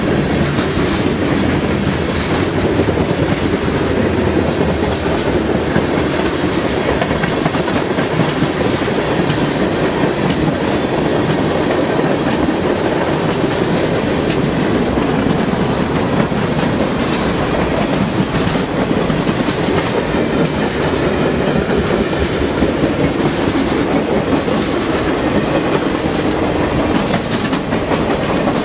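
A freight train's cars rolling past close by: a loud, steady rumble of steel wheels on the rails that does not let up.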